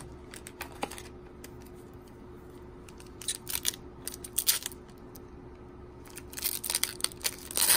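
Foil wrapper of a Topps MLS trading-card pack crinkling in the hands and being torn open. Scattered crackles come first, then a dense run of crinkling and tearing over the last second and a half.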